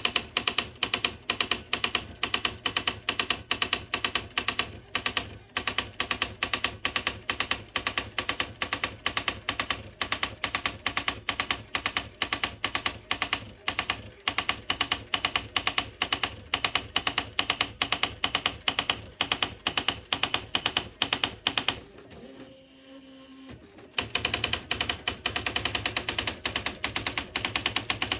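Smith Corona SD 680 electric typewriter striking characters in a fast, even run. About 22 seconds in the strikes stop for two seconds and only a faint motor hum is left, then the typing starts again.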